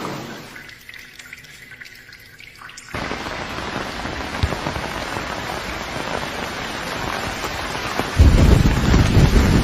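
Steady rain. It drops away to a quieter stretch with faint drips for about two seconds, returns abruptly, and a heavy low rumble joins about eight seconds in.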